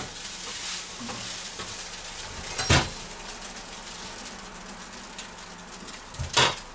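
Steady sizzling of hot fat, broken by a few sharp knocks, the loudest about two and a half seconds in and near the end.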